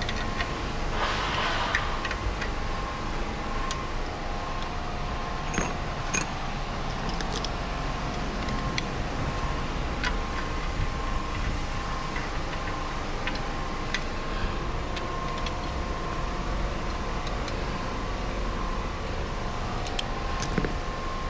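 Scattered light metallic clicks and taps of screws, bolts and hand tools being handled while the engine's oil pan screws are put in, over a steady mechanical hum.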